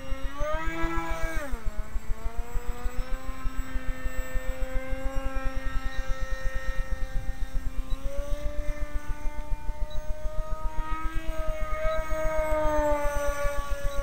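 Model flying boat's motor and propeller running in flight, a pitched whine that rises and falls as the throttle and distance change: up about a second in, down soon after, and up again twice in the second half. A rapid, regular low pulsing runs underneath.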